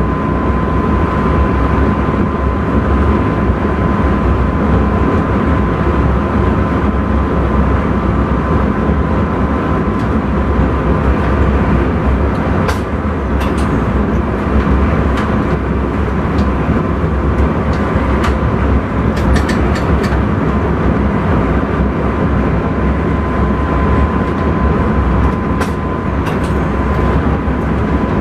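Intercity train running at speed, heard from inside the driver's cab: a steady low rumble with a constant high tone over it, and a few short sharp clicks about halfway through and again near the end.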